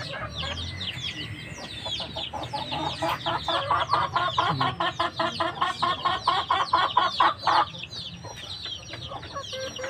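Chickens calling: a steady stream of short, high, falling peeps, with a rapid run of clucks from about three seconds in until past seven seconds.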